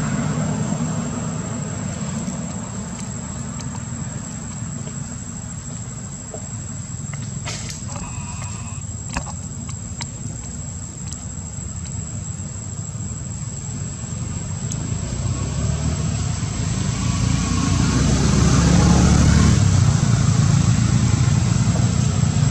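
Low, steady rumble of a motor vehicle engine, growing louder about two-thirds of the way through.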